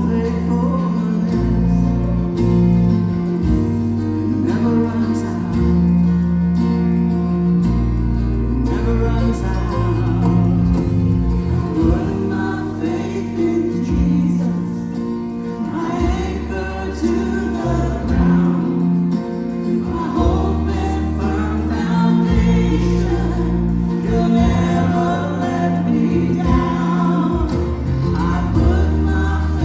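Gospel worship song: a choir singing over a band with a steady, sustained bass line that moves from note to note.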